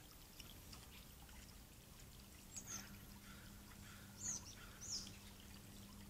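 Water trickling and splashing steadily from a stone column garden fountain onto rocks, faint and continuous. Three short, high bird chirps stand out in the second half.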